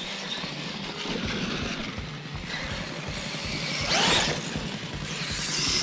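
Radio-controlled monster trucks driving over dirt: a steady motor whine and tyre noise. About four seconds in, one truck revs hard, the loudest moment.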